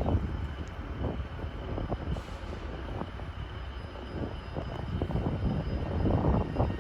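Two coupled Class 331 electric multiple units pulling away, a low rumble of traction motors and wheels on the track.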